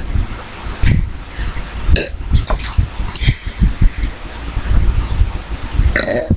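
Several human burps in a row, brought up by drinking carbonated soda (Sprite).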